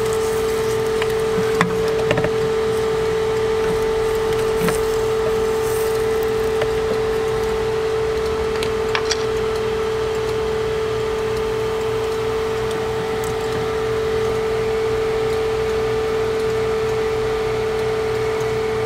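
A steady hum with one strong even tone, under a few light clicks and knocks of wooden-handled tools against a bubble-waffle iron.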